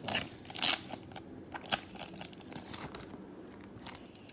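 Packaging crinkling as it is handled, in several short rustles, the two loudest in the first second.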